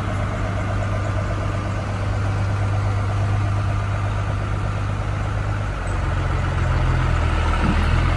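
Vintage military vehicle's engine running steadily, its pitch and loudness stepping up about six seconds in.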